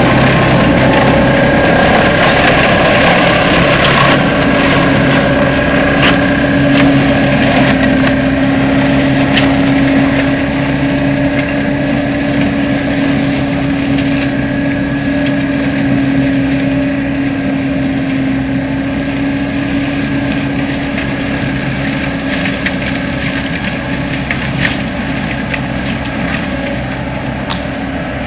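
Tracked skid steer's diesel engine and hydraulic forestry mulcher head running hard, with a steady hum from the spinning rotor that sets in about four seconds in and scattered sharp cracks of wood and brush being chewed up. The sound slowly grows fainter.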